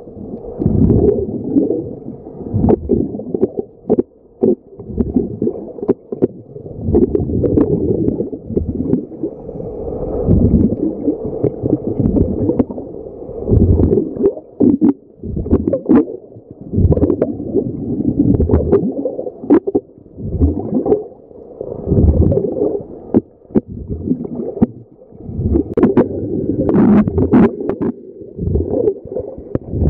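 Bubbles rumbling and gurgling underwater in surges every two to three seconds, with scattered sharp clicks.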